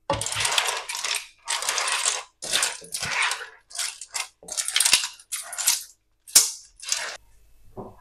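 Clam shells clattering against each other and the pan as spaghetti and clams are stirred and tossed with a wooden spatula, in a run of about ten short rattling strokes with dead-silent gaps between them.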